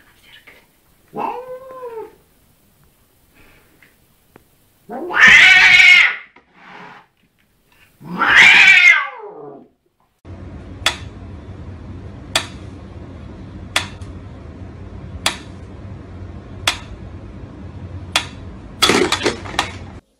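White cat caterwauling at its own reflection in a mirror: a short meow, then two long, loud yowls, the second falling in pitch. After a cut comes a steady low hum with sharp clicks about every second and a half, and a cat's call near the end.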